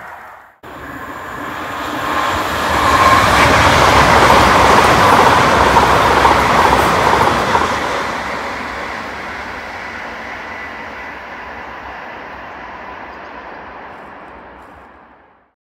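Double GWR Class 387 Electrostar electric multiple unit passing: after a brief gap at the start, the train sound swells over a few seconds, holds loud, then fades slowly before cutting off abruptly near the end.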